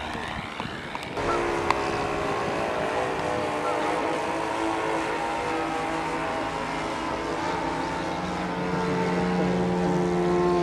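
Radio-controlled model aircraft engines running steadily, several engine notes held together, getting louder about a second in and again near the end.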